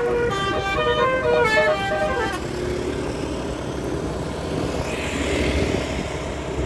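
Angkot minibus's telolet horn playing a stepped melody of short, bright notes, ending about two and a half seconds in, followed by vehicle engine and road noise.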